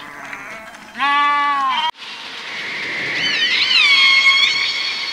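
A farm animal bleats once, a pitched call lasting just under a second. A different recording then cuts in, with several high whistled calls sliding down and levelling off over a steady high drone.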